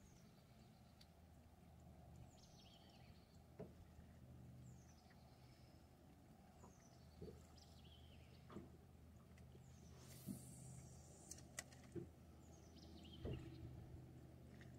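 Faint birdsong: a high note sliding downward, repeated every second or two, over a low steady hum. A few faint ticks are scattered through it.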